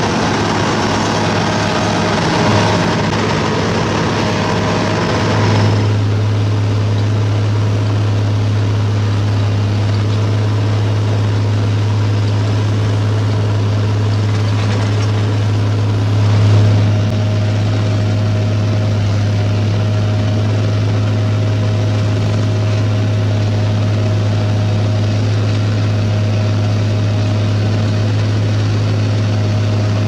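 Sumitomo HA60C asphalt paver's diesel engine running steadily with a deep, even hum. Over the first five seconds or so a harsher hiss and rattle rides on top of it, then falls away.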